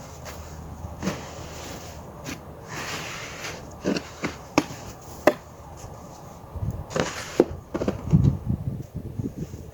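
Snow shovel clearing snow off stair steps: sharp knocks of the blade against the steps, short scrapes as snow is pushed off, and a run of low thuds near the end.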